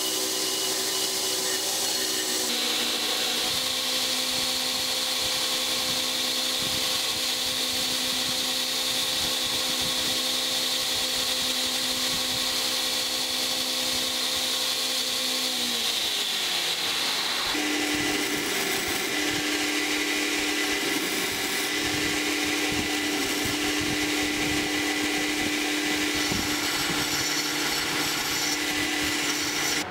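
Belt grinder running while a pattern-welded steel knife blank is pressed against the abrasive belt to grind out the blade's profile: a steady motor hum under a rasping grind. About halfway through the motor's pitch slides down and settles lower.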